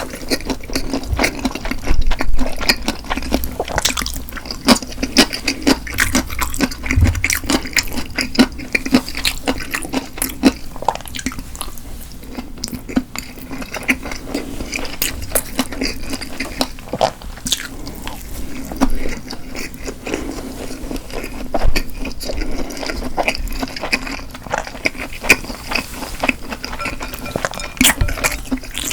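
Close-miked eating sounds: a person chewing wet food, dense irregular mouth clicks and smacks, with liquid sounds mixed in.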